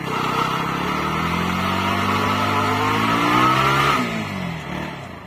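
Bajaj Pulsar NS 160's single-cylinder engine revving hard, its pitch climbing steadily for about four seconds, then dropping away as the throttle comes off.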